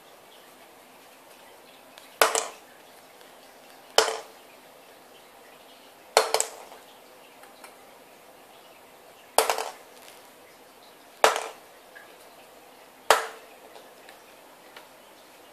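A ping-pong ball dropped six times onto a glass-topped table, each drop a sharp click followed by a quick run of smaller, fading bounces.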